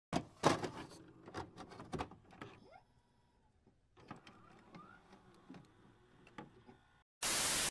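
Intro sound effects for a glitch-and-loading animation: a run of sharp clicks and short rising whooshes, then, near the end, a loud burst of hiss like static.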